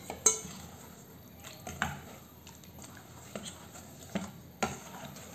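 Steel spoon stirring pieces of jaggery into milk in a stainless steel bowl, with a few quiet scrapes and clinks of metal on metal, the loudest just after the start.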